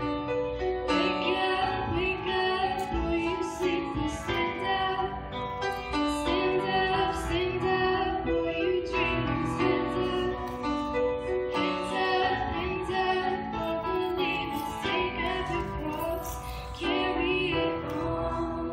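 A girl singing while accompanying herself on a grand piano.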